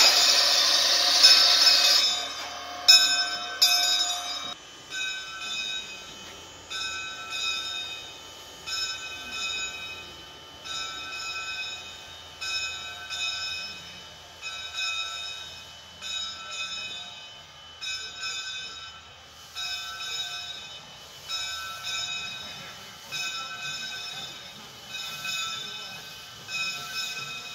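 Narrow-gauge steam locomotive letting off steam with a loud hiss, then a couple of sharp knocks. From about four and a half seconds in, a locomotive bell rings steadily in a slow, even rhythm, about one stroke every two seconds.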